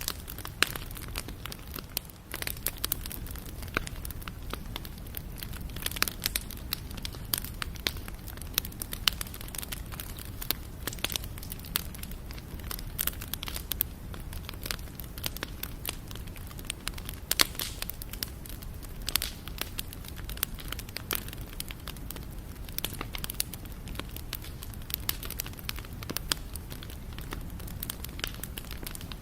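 Campfire burning: wood crackling and popping in many irregular sharp snaps, over a steady low rumble of the flames.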